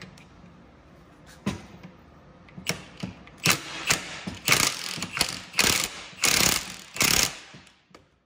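Cordless impact wrench hammering on an alternator's pulley nut in about six short bursts through the second half, after a few light clicks of handling.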